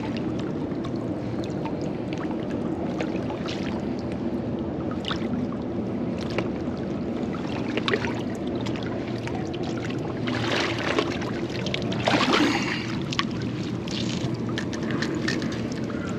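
Shallow water sloshing and lapping around a wading angler and against granite rocks, with scattered small splashes. About ten seconds in come two spells of louder splashing as a hooked flounder is brought in and scooped into a landing net.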